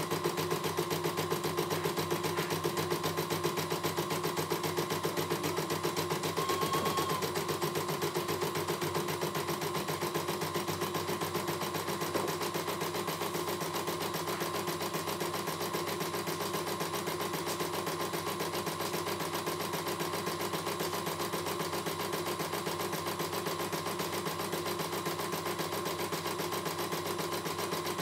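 CNY E900 computerized embroidery machine stitching a design, its needle running in a fast, steady rhythm that eases slightly after about twelve seconds.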